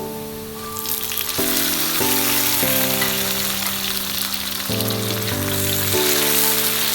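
Food sizzling as it fries in hot oil in a pan, the sizzle swelling up about a second in and then holding steady.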